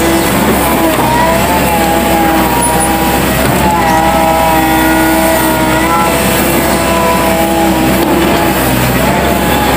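Excavator engine running under load, with a steady whine that dips slightly in pitch and recovers every second or two as the machine works.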